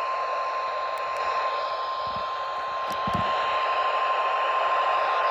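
Weather radio sounding its single steady 1050 Hz warning alarm tone over a hiss of radio static.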